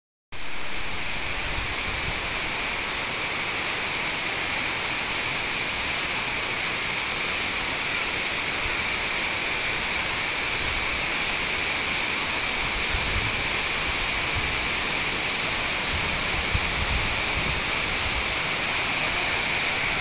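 Steady rushing of a waterfall and its rocky stream: an even hiss of falling water that holds without change.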